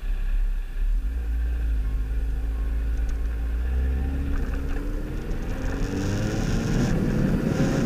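Kawasaki ZX-10R's inline-four engine pulling under acceleration, its note rising steadily from about a second in, with wind noise on the microphone building near the end.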